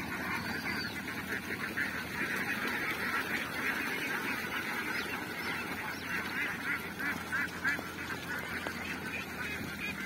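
A large flock of hundreds of domestic Kerala ducks quacking all at once, a dense, continuous chatter of overlapping calls.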